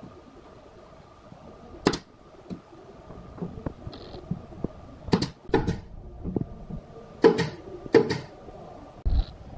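Pneumatic brad nailer firing into a plywood cabinet: five sharp shots, the last four in two close pairs, with lighter knocks of wood being handled between them.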